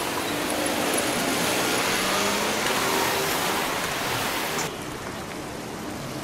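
Road traffic noise: the steady rushing hiss of passing cars and buses, with a faint engine hum under it. It drops to a quieter, duller level about three-quarters of the way in.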